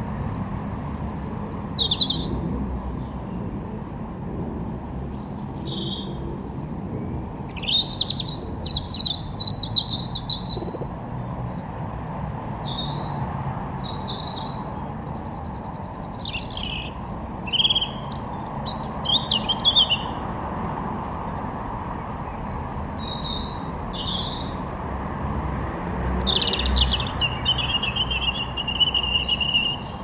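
Songbirds singing: short bursts of high chirps and whistled phrases, busiest about a third of the way in and again just past halfway, with one long trill near the end. A steady low rumble runs underneath.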